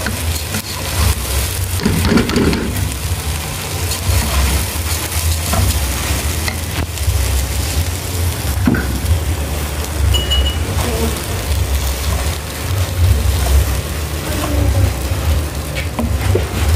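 Freshly washed rice sizzling as it fries in oil in a pot, with a wooden spoon stirring and scraping through the grains. A steady low hum runs underneath.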